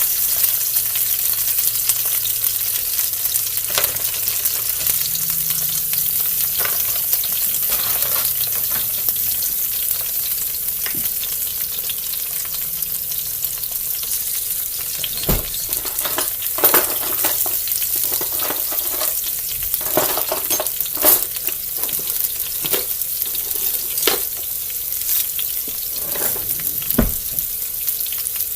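Chicken potstickers frying in oil in a skillet: a steady sizzling hiss with scattered crackles and pops, several sharper pops in the second half.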